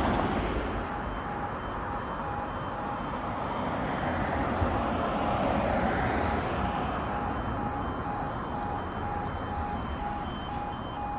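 Level crossing warning alarm sounding as the crossing starts its lowering sequence: evenly spaced electronic beeps at a steady pitch, several a second, beginning about a second in, over road traffic noise.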